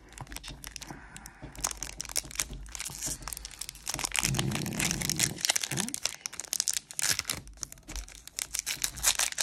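Foil-lined trading card pack wrapper crinkling and crackling as fingers work at its crimped end and tear it open. A brief low hum sounds about four seconds in.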